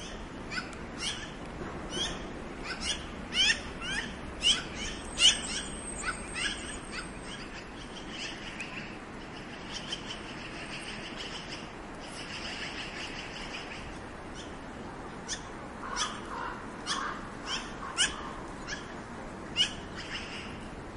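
Black-billed magpie calling: a run of short calls, several a second and loudest in the first six seconds, thinning out in the middle and picking up again in the last third.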